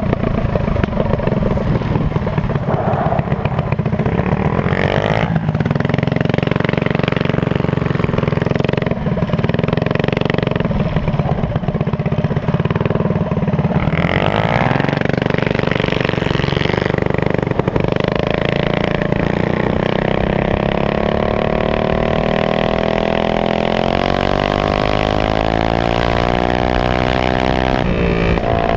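Minibike's GX160 single-cylinder four-stroke engine running hard at speed. The revs dip around five and fourteen seconds in, then climb steadily over the last several seconds.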